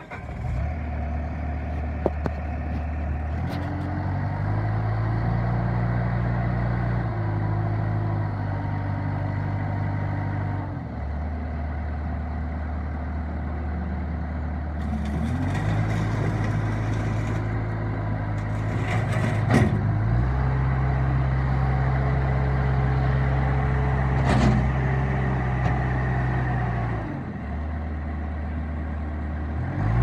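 Bobcat A300 skid-steer loader's diesel engine running while the machine drives and works its loader arms. The engine speed rises and falls in steps several times and holds steady between changes, with a few sharp clanks.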